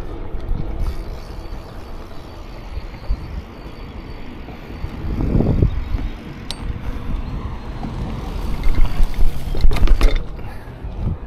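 Redline BMX bike being ridden: steady tyre and road rumble with mechanical rattling from the bike. There is a louder swell about five seconds in, then a clatter of sharp knocks and rattles about nine to ten seconds in, as over rough ground.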